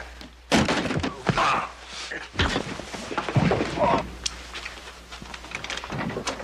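Fistfight: a few sharp punch thuds, the loudest about half a second in and another about two and a half seconds in, with a man's pained grunts and groans between them.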